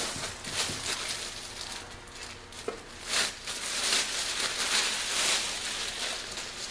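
Packing material rustling and crinkling in irregular swells, with a few sharp crackles, as the shelf and its padding are handled and unwrapped.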